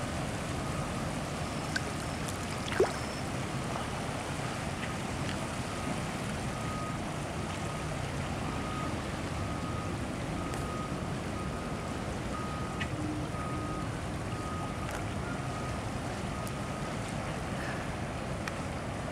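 Steady rush of floodwater running across a road. A faint high beep repeats about once a second through most of it, and there is one sharp click about three seconds in.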